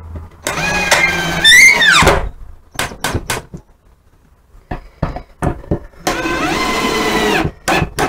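Cordless drill driving screws into particle board in two runs of about a second and a half each. The motor's pitch swings up and then falls away as the first run stops, and sharp clicks and knocks come between the runs.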